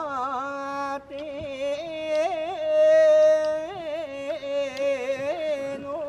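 A boatman singing a traditional Japanese folk song unaccompanied: one male voice holding long notes decorated with small ornamental turns, swelling loudest on a long held note about halfway through.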